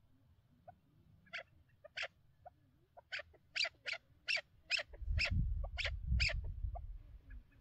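Chukar partridge giving a series of about ten short, sharp calls, coming faster in the middle and stopping about six seconds in. A low rumble runs underneath from about five to seven seconds in.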